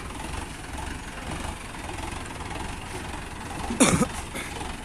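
Farm tractor engine running steadily as it tows a trailer loaded with a combine harvester onto a wooden ferry ramp. A single loud, sudden sound cuts in near the end.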